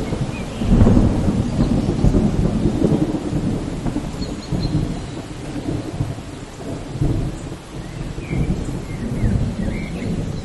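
Thunderstorm: steady heavy rain with thunder rumbling continuously underneath, swelling strongest about a second in and then rolling on in lower surges.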